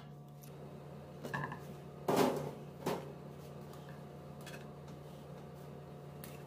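Cookware clatter at a nonstick frying pan as a glass lid and a plastic spatula are handled: a few small knocks, a louder clank about two seconds in and a lighter knock just after, over a faint steady hum.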